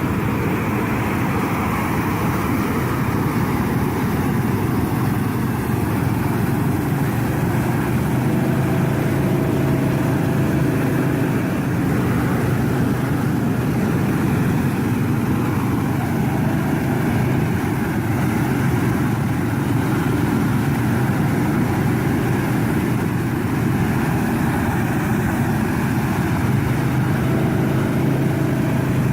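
Heavy farm machine's engine running steadily, a constant low drone with mechanical noise that barely changes.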